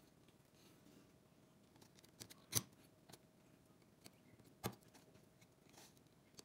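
Mostly near silence, broken by a few faint, sharp clicks and taps as small hexagonal screw sockets are handled and pressed into the hex holes of a 3D-printed plastic frame. The sharpest click comes about two and a half seconds in, and another about five seconds in.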